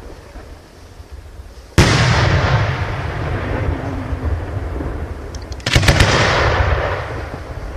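Fireworks going off: two sudden loud bursts of aerial shells, about four seconds apart, each followed by a long fading tail of noise. The first comes nearly two seconds in, and a few faint pops come just before the second.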